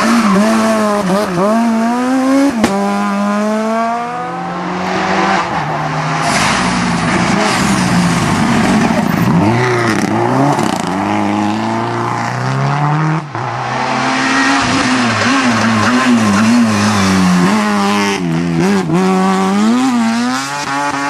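Rally cars' engines revving hard through tight bends, one car after another: the pitch drops on braking and downshifts, then climbs as each car accelerates away. Tyre squeal comes in at times, and the sound cuts abruptly from one car to the next twice.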